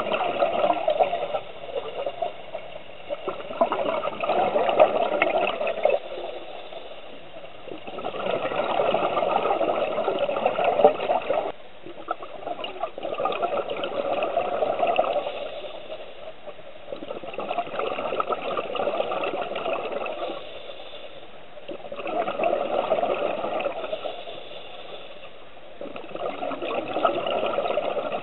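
Scuba diver's regulator breathing underwater: exhaled bubbles burst out for two to three seconds at a time, about every four to five seconds, with quieter gaps between breaths.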